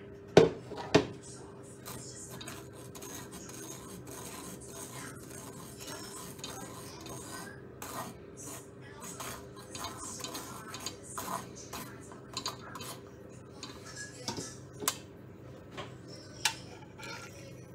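A metal utensil clinking and scraping against a stainless steel pot: two loud knocks about half a second and a second in, then scattered lighter clinks and scrapes, over a steady faint hum.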